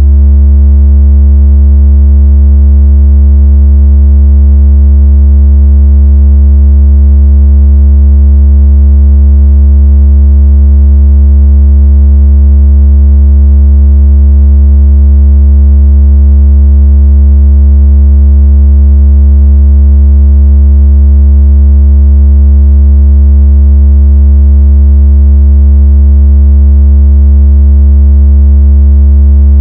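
Deep, steady synthesized tone, a continuous low hum with faint overtones, played very loud as a phone-vibration and water-out-of-speaker sound effect.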